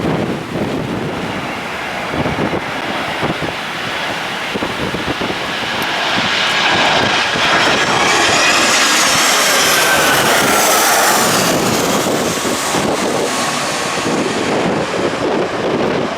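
Jet airliner's engines at go-around thrust passing by, swelling to a peak with a whine that falls in pitch as it goes past, then easing off. Gusty wind buffets the microphone underneath.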